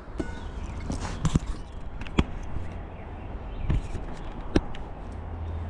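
Scattered clicks and knocks of a hand tap and tap wrench being worked into a drilled hole in aluminum extrusion, about one every second, with a low steady hum coming up near the end.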